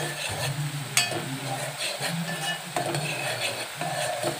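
Onion paste frying in hot oil in a metal pot, sizzling while a spoon stirs it, with a few knocks and scrapes of the spoon against the pot.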